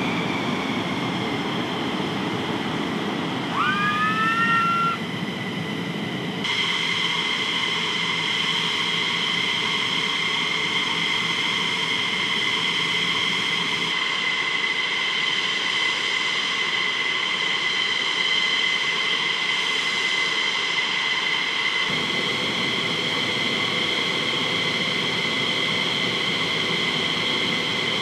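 F-15E Strike Eagle jet engines running at idle: a steady high-pitched turbine whine over a rushing hiss, with a brief rising whine a few seconds in.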